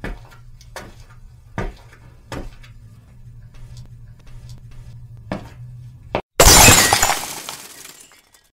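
Logo-intro sound effects: several sharp knocks over a low hum, then about six seconds in a loud crash of shattering glass that fades away over a second or so.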